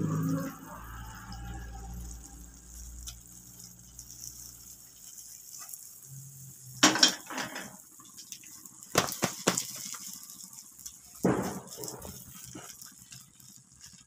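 Hot Mysore pak mixture being scraped out of a metal pan into a plastic box with a spatula. There is a louder low clatter as the pan is tipped at the start, then a few separate scrapes of the spatula against the pan and box, about seven, nine and eleven seconds in.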